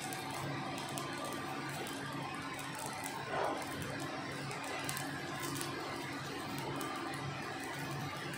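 Electric arc welding on a steel vessel: a steady crackle and hiss from the arc with a low hum underneath, and one short louder swell about three and a half seconds in.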